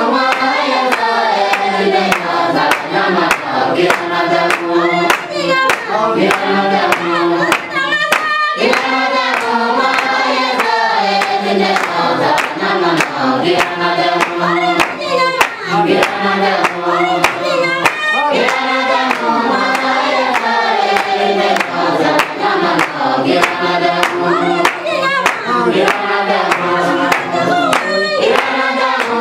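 A group of adult voices singing together, with hand claps keeping a steady beat.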